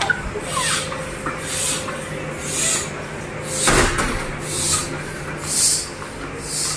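Hand air pump being worked to inflate a plastic swim ring: a rhythmic hiss of air about once a second, with one louder stroke near the middle.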